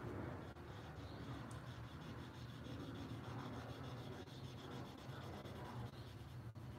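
Faint, continuous rubbing of a drawing tool on paper, working graphite shading into a pencil drawing, over a steady low hum.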